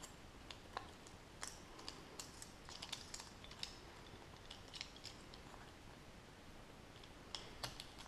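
Faint, scattered clicks and short scratches of a small snap-off cutter blade cutting into a styrofoam ball and prying a small square plug out of it.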